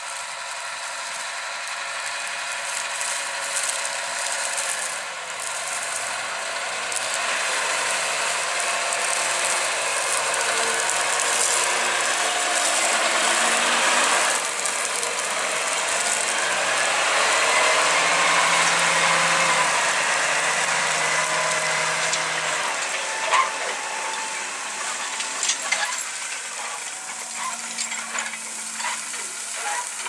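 John Deere 7310R tractor working a Kverneland BE 100 reversible plough, its six-cylinder diesel engine and drivetrain running under load with the plough clattering; the sound builds to its loudest a little past midway as the tractor passes close, with a whine that rises and falls. Sharp metallic clanks from the plough come through near the end.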